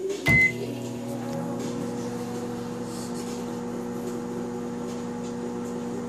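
Sanyo microwave oven started with a short keypad beep about a third of a second in, then running with a steady hum.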